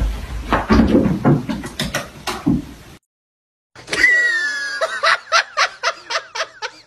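A thump, then a person laughing hard in quick, even bursts, about four a second, after a short break.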